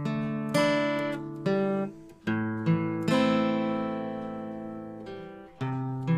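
Epiphone Texan acoustic guitar, solid Sitka spruce top with mahogany back and sides, played with chords picked and strummed and each left to ring. The chord struck about three seconds in rings for over two seconds. The guitar's lifting bridge has just been repaired.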